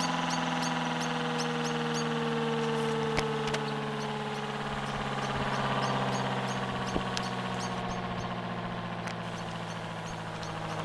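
Prototype 8/12-port mechanical siren sounding a steady chord whose upper tones slowly fall in pitch, over a steady low hum. A bird chirps repeatedly in the background.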